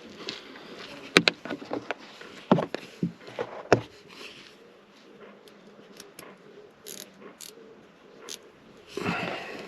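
Sharp clicks and light knocks of a screwdriver and plastic trim being handled, with quieter rustling between them and a short noisy rustle near the end.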